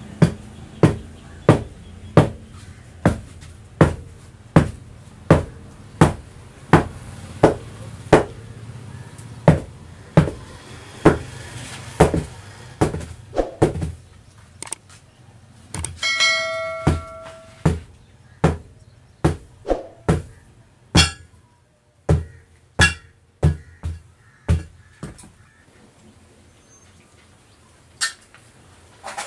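Hammer blows on an auto-rickshaw tyre's bead to seat it onto the steel rim. They come steadily at about one and a half a second, then grow more spaced and irregular. A short ringing chime sounds about 16 seconds in.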